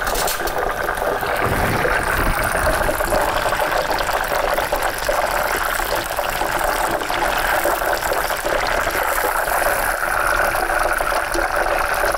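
Buffalo drumsticks frying in hot oil in a pan: a steady sizzle of bubbling oil.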